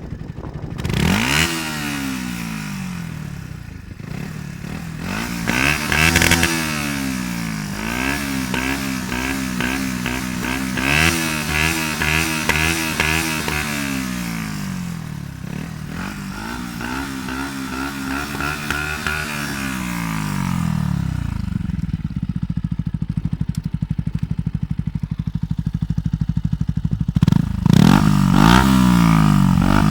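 Yamaha YZF-R125's single-cylinder 125 cc four-stroke engine with a LeoVince aftermarket exhaust, revved again and again while standing: several rises and falls in pitch of a few seconds each, loud. It settles to idle for several seconds, then revs once more near the end.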